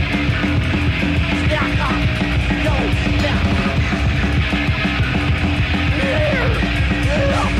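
Live extreme-metal band recording: distorted guitars, bass and drums in a dense, continuous wall of sound. A steady held note runs under it, with short rising and falling pitch slides over the top.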